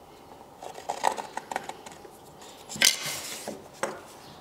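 A few light clicks and taps, then a short scraping rustle about three seconds in, from a pencil and a thin wooden scribing block being handled against a skirting board on a timber floor.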